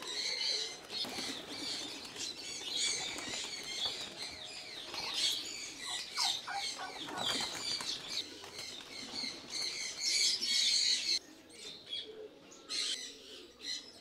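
Pigeons' wings flapping as the flock takes off and lands, over many small birds chirping. The chirping thins out about eleven seconds in.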